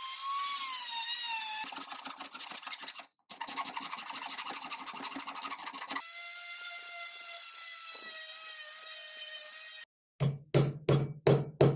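Knife-making shop work in quick succession: a brief wavering squeal, then rapid scraping strokes like rasping or sawing metal and wood, then a steady machine whine for a few seconds, and finally about six sharp knocks in quick rhythm.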